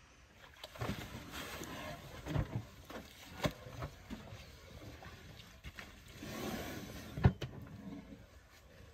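African elephant working wet mud in a wallow with her foot and trunk: irregular squelching and slapping of mud, with a few sharp thuds, the loudest about seven seconds in.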